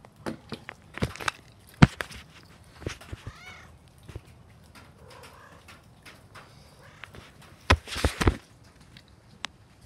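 A cat pouncing and landing on wooden deck boards: sharp knocks and thumps, several about a second in and a louder cluster near the end.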